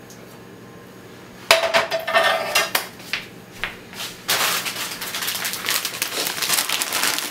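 Metal skillet and spatula set down on a gas stove's grate: a loud clank with a short metallic ring about a second and a half in, then a few more knocks and clinks. From about four seconds in, a steady crackly rustle follows.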